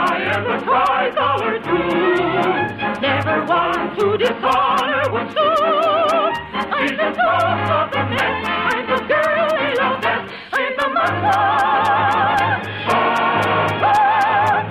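Operatic soprano singing held notes with a wide vibrato over an orchestra, in an operetta march song. The sound is narrow and dull at the top, as on an old radio transcription recording.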